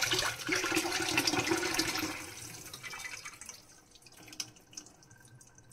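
Cold tap water running over boiled macaroni in a plastic colander above a stainless-steel sink. The flow dies away about two to three seconds in, leaving scattered drips.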